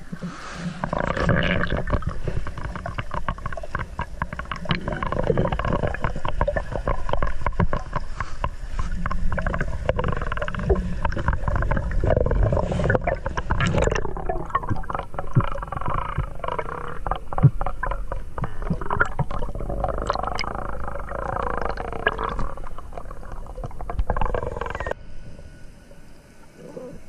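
Underwater sound picked up by a camera in its waterproof housing: a dense, muffled rumble of water with many sharp clicks and wavering, bending tones. Near the end the sound thins out and drops in level.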